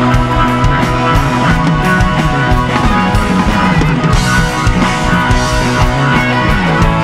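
Live rock band playing an instrumental jam: Stratocaster-style electric guitar over a drum kit, with a steady beat.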